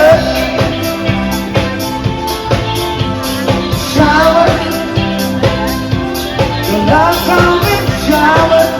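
Background music: a song with a steady drum-kit beat and a sung melody.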